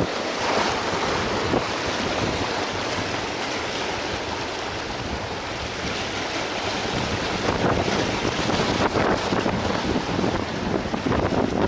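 Wind buffeting the microphone over small waves washing and splashing against the rocks of a breakwall, rising and falling irregularly.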